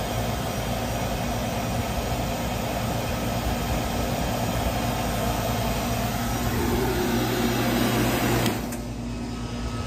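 Vacuum pump running with a steady low hum at the end of evacuating an AC system. It is switched off about eight and a half seconds in, and a quieter hum remains.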